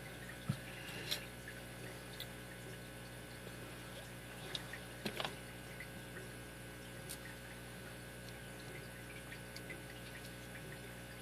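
A few faint, scattered clicks and taps of small metal padlock parts being handled during disassembly, with a small cluster of clicks about halfway through, over a steady low hum.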